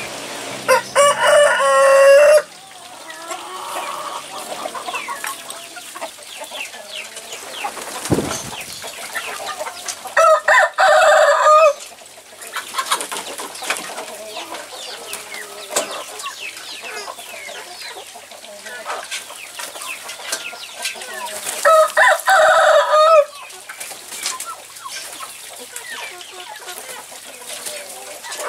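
Ayam kampung (Indonesian native village chickens): a rooster crows three times, about ten seconds apart, each crow under two seconds long. Between the crows, chickens cluck and chirp continuously.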